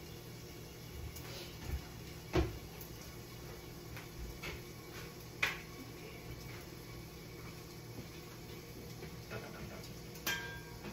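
Kitchen handling noises over a steady low hum: a few scattered knocks and clicks, then a stainless steel pot lid clinking near the end as it is gripped to be lifted.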